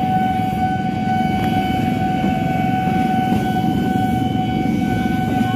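Tokyo Metro 6000-series electric commuter train (set 6022) passing close by, its wheels rumbling steadily on the rails, with a steady high-pitched tone sounding over the rumble.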